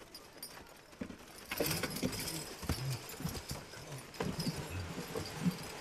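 Team of heavyweight Belgian draft horses pulling a loaded stone boat: hooves striking and digging into the dirt track with harness chains jangling, getting louder about a second and a half in.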